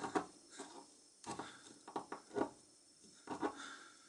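Quiet, irregular scraping and rubbing of a thin wire tool worked inside a small metal tube of an old lighter, in about six short strokes, the last one about three and a half seconds in.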